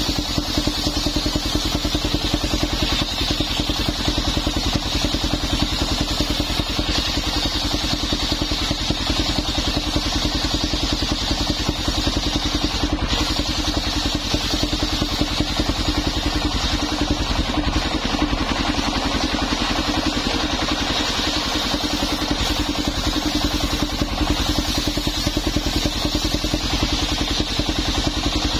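The engine of a mobile circular sawmill running steadily with an even pulse, driving the belt-driven circular saw blade as it rips old coconut-palm timber into beams.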